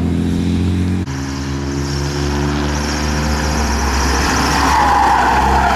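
Rally car engines held at high revs: a BMW saloon for about the first second, then, after an abrupt change, a white Porsche 944's four-cylinder engine as it drives through a bend, its steady note getting louder toward the end.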